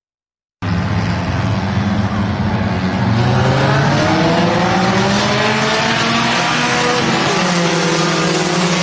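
Race car engines running at speed on a track, several engine notes gliding up and down in pitch over a steady rush of noise. The sound cuts in abruptly about half a second in.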